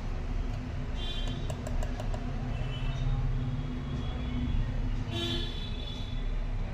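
Background street traffic: a steady low rumble with a few short, high horn toots.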